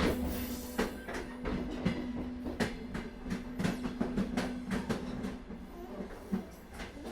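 A train running on rails: a steady low rumble with irregular clicking of the wheels over the track. A soft piano note dies away in the first second.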